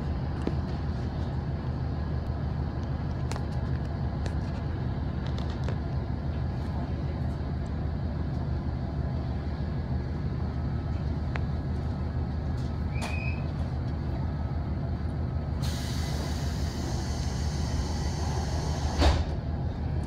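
Diesel railcar engine idling steadily while the train stands still. Near the end a loud hiss of compressed air lasts about three seconds and ends in a sharp thump, the sound of the air-worked doors or brakes.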